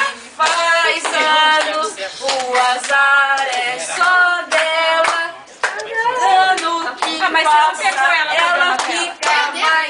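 A group of people singing a birthday song together while clapping their hands in time.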